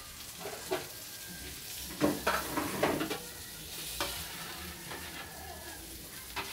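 Food sizzling in frying pans over a cooking fire, with a metal ladle clanking and scraping against a wok as it is stirred. The strokes come in a loud cluster about two to three seconds in, with single clanks before and after.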